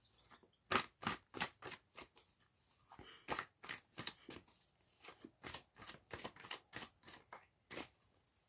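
A deck of tarot cards being shuffled by hand, the cards striking together in short, quick strokes about three times a second.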